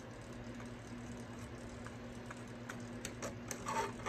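Faint crackling of flux and solder on a hot soldering-iron tip at a wire joint, a few small crackles from about two seconds in, over a low steady hum.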